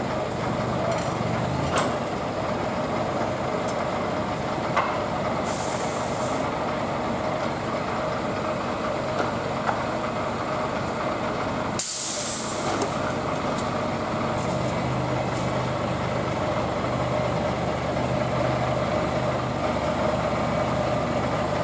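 Scania truck's diesel engine idling, with a short hiss of air about five seconds in and a loud air-brake release hiss about twelve seconds in. After that the engine note rises a little as the truck starts pulling its trailer away.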